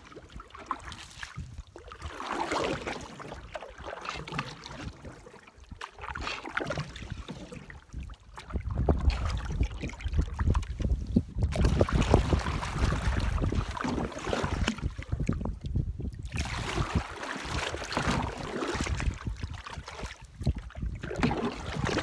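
Wooden canoe paddle strokes swishing and dripping through lake water. Wind buffets the microphone as a low rumble from about a third of the way in.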